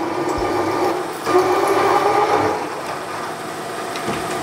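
Bridgeport milling machine running with a steady mechanical hum. It grows a little louder just over a second in and eases back about a second later.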